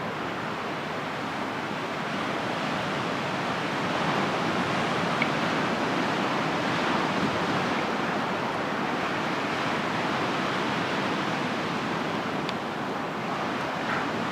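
Atlantic surf washing onto the beach: a steady rush that swells a little about four seconds in.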